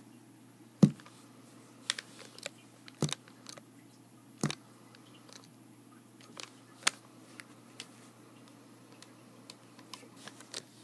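Scattered clicks and knocks of hands handling small gear on a bench, over a low steady hum. The loudest knock comes about a second in, with lighter clicks at irregular intervals after it.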